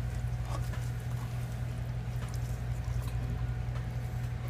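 A steady low hum runs underneath soft wet handling sounds and a few faint taps as a whole armadillo carcass is rolled onto its back in a metal roasting pan of rice and vegetables.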